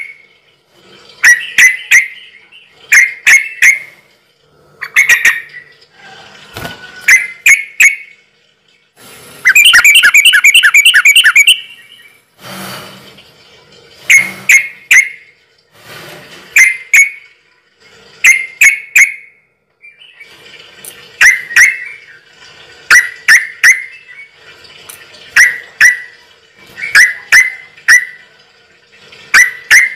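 A bird chirping loudly in short clusters of two or three sharp notes, repeated every second or two, with one fast run of about a dozen notes about a third of the way in.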